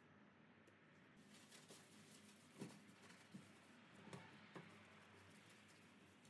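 Faint rubbing of a sponge scrubbing a stainless steel stovetop, with a few soft knocks around the middle.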